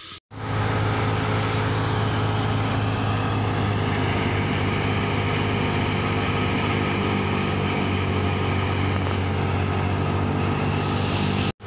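Stationary wheat thresher running at a steady speed while sheaves are fed into it to separate grain from straw: a constant low hum under an even hiss. The sound drops out for a moment near the start and again near the end.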